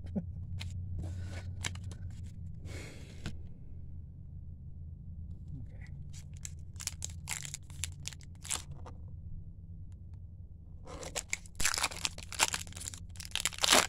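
Trading cards handled with light clicks and rustles, then, about eleven seconds in, a foil baseball-card pack wrapper torn open and crinkled for a few seconds, the loudest sound.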